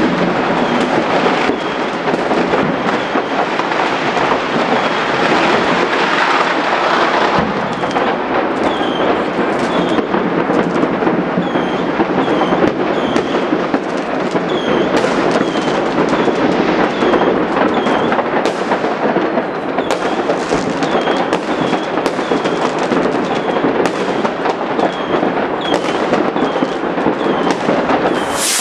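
Many fireworks and firecrackers going off at once: a dense, continuous crackle with many sharp bangs scattered throughout.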